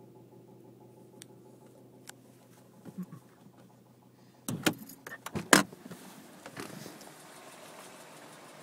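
2007 Subaru Legacy spec.B's turbocharged flat-four running with a steady low hum, then a burst of loud knocks and rattles about halfway through. This is the clattering noise whose source the owner cannot find.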